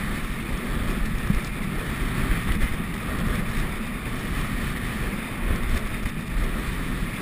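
Wind rushing over a head-mounted GoPro's microphone while skiing downhill, a steady low rumble, with the hiss of skis sliding and carving on packed snow.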